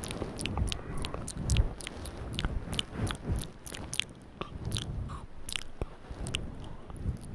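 Close-miked ASMR mouth sounds: chewing and nibbling noises ('noms'), with a quick run of sharp wet clicks over soft low thumps.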